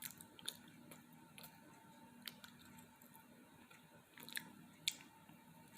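Quiet close-up chewing of a sandwich: a few scattered wet mouth clicks and smacks, the loudest near the end, over a faint steady hum.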